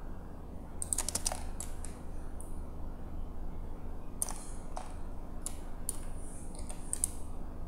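Scattered clicks of computer keyboard keys and mouse buttons, with a quick cluster about a second in and single clicks after, over a steady low hum.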